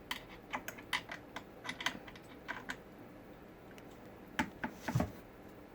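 Cat tree parts being handled and tightened: a quick run of small clicks and taps, then two louder knocks about four and five seconds in.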